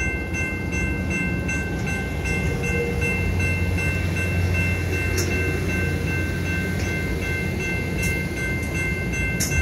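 Passenger cars rolling past at close range: a steady low rumble of steel wheels on the rails, swelling a little in the middle. A steady high-pitched ringing sits over it throughout.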